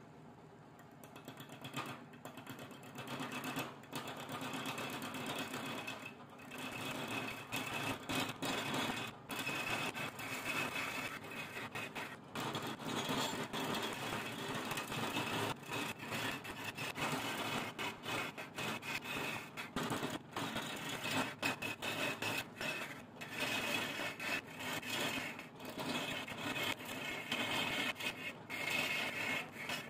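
A hand-held turning tool cutting a long wooden blank spinning on a wood lathe. The steady rasping scrape of the cut starts about a second in and breaks off briefly many times as the tool lifts and moves along the work. The lathe's motor runs underneath.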